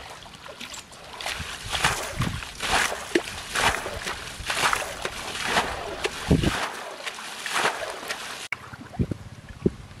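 Water scooped from a muddy ditch with a plastic basin and flung out, splashing again and again about once a second: bailing the ditch dry. Near the end it turns quieter, with a few small sloshes in shallow water.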